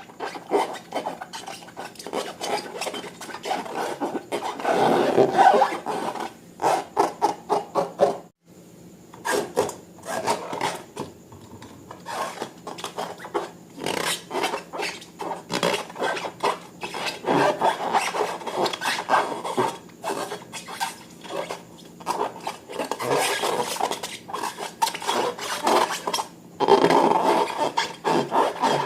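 Slime being squeezed and worked by hand: a dense run of small clicks and pops, with a short pause about eight seconds in.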